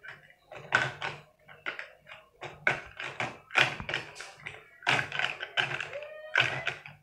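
Plastic toy food and toy utensils being handled on a plastic play kitchen set: quick, irregular clacks and taps, about three a second.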